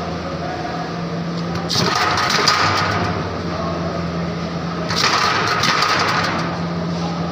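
Lever-press vegetable dicer forcing cabbage through its cutting grid twice, each press a short burst of crunching and crackling, over a steady low hum.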